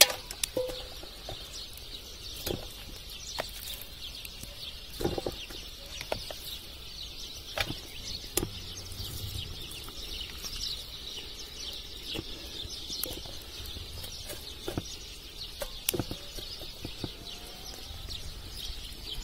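Chickens clucking and small birds chirping steadily in the background, with scattered sharp clicks and soft knocks from raw beef pieces being handled and laid into an aluminium pot.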